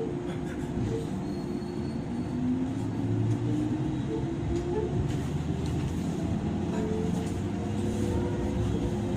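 Interior running sound of a JR 103-series electric train motor car under way: steady rumble of wheels on rail with the hum of its DC traction motors, one tone rising slowly partway through, and light knocks from the track.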